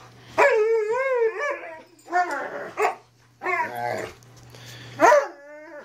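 Alaskan malamutes play-fighting and vocalizing in four wavering, pitched calls; the first is the longest, over a second, and the last slides down in pitch near the end.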